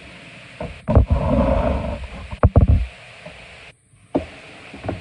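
Hands pressing fish into a dish of breadcrumb coating. A loud stretch of rubbing and bumping starts about a second in, followed by a few sharp knocks, over a steady hiss.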